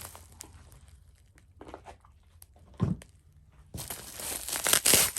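Packaging being opened by hand: a few light taps and knocks, then, near the end, a burst of loud crinkling and rustling as the wrapping is pulled open.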